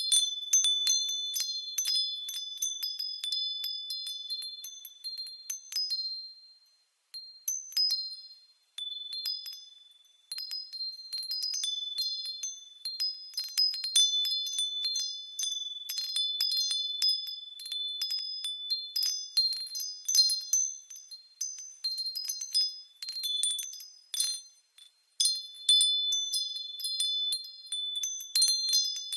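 Wind chimes ringing in crisp, irregular clusters of high, clear tones, with a few brief lulls.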